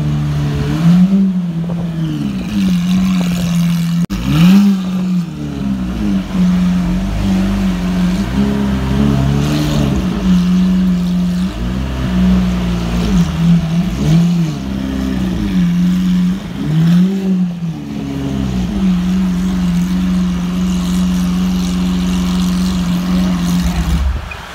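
Lamborghini Aventador LP700-4's V12 idling steadily through an Armytrix header-back valvetronic exhaust, with a series of short throttle blips that rise and fall in pitch. The engine sound drops away shortly before the end.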